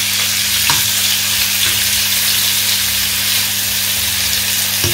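Raw chicken breast pieces sizzling in hot oil in a nonstick frying pan, a steady hiss, with a few short clicks of a metal fork against the pan as the pieces are pulled apart.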